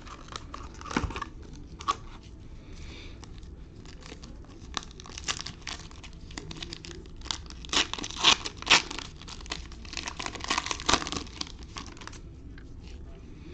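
Wrapper of a trading-card pack being torn open and crinkled, in irregular bursts of crackling that come thickest about eight to eleven seconds in.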